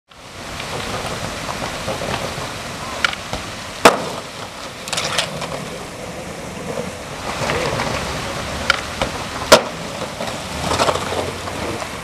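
A skateboard landing and rolling through shallow running water, with steady splashing and water noise. Sharp smacks from the board come through it, the loudest twice, about four and nine and a half seconds in.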